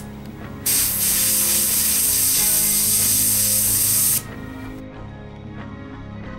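Airbrush spraying paint at light pressure: a steady hiss that starts about half a second in, lasts about three and a half seconds and cuts off.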